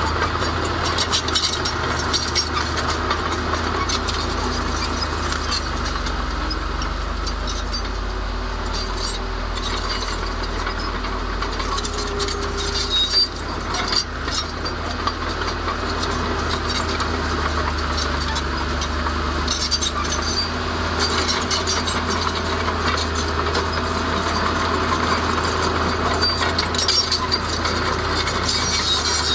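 Heavy diesel earth-moving machinery running steadily with a deep engine rumble, mixed with continual metallic clinking and rattling.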